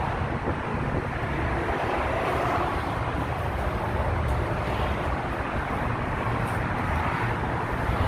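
Steady road-traffic noise, with wind buffeting the microphone in uneven low rumbles.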